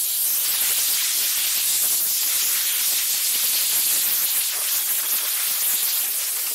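Compressed-air blow gun on an air hose hissing steadily as it blows dirt off a vehicle fuel tank.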